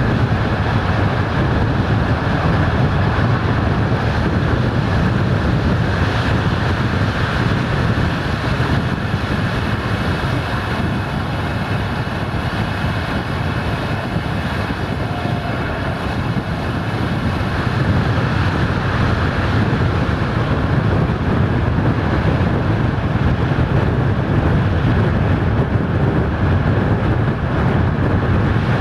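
Steady wind buffeting a microphone held out of a moving passenger train's window, over the rumble of the coaches' wheels running on the rails.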